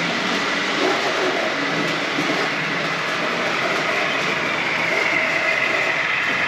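Model trains running on a layout: a steady rumble of small motors and wheels on track.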